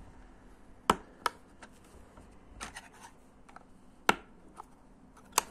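Lego plastic pieces being handled and pressed onto a baseplate: four sharp plastic clicks, two close together about a second in, one about four seconds in and one near the end, with fainter taps and ticks between.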